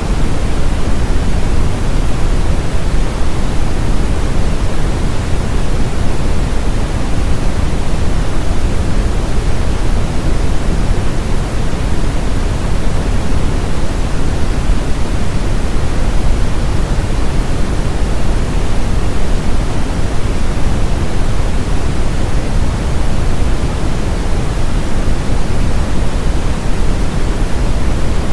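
Brown noise: a loud, steady, even rush of noise weighted towards the deep low end, played as a tinnitus masker.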